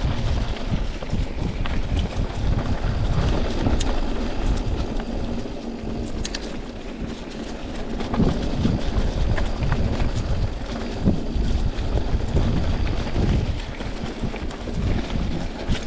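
Wind rushing over the microphone while a mountain bike rolls along a leaf-covered dirt trail, with a few sharp clicks and rattles from the bike.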